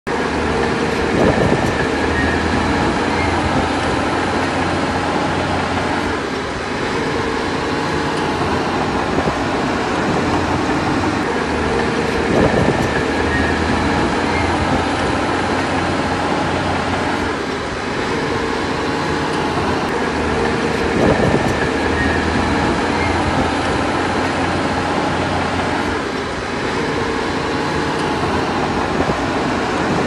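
Diesel engine of heavy earthmoving machinery running steadily under load, easing off briefly about every ten seconds, with a short sharper sound a few seconds before each easing.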